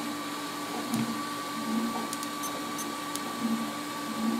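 Type A Machines Series 1 Pro 3D printer printing nylon: a steady fan hum, with short stepper-motor buzzes recurring every second or so as the print head moves and the extruder retracts between the two cylinders, and a few faint ticks.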